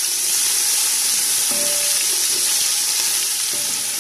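Sliced onions sizzling in hot oil in a large aluminium pot as they are stirred with a wooden spoon: a steady frying hiss.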